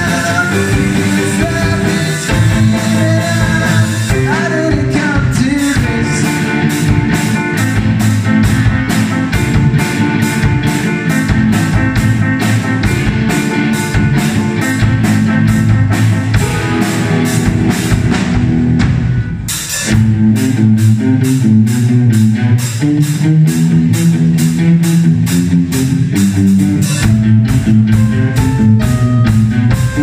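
Live rock band playing a song: a male lead vocal over electric guitar, a Yamaha keyboard and a drum kit keeping a steady cymbal beat. About two-thirds of the way in the music drops away for a moment and comes back in a new section.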